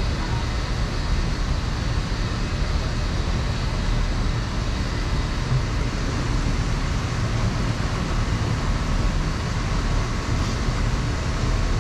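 Steady low rumble with a hiss, the running noise aboard a moving ride boat gliding through a greenhouse.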